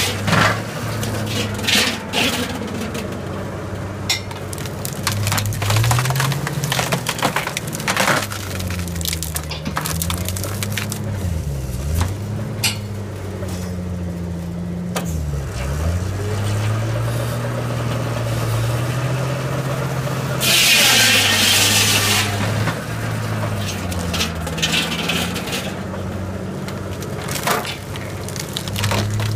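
Engine running a homemade firewood processor's hydraulic splitter, its pitch sagging and recovering a few times under load. Logs are cracking and splintering as they are forced through an 8-way wedge. About two-thirds through there is a loud hissing rush lasting a second or two.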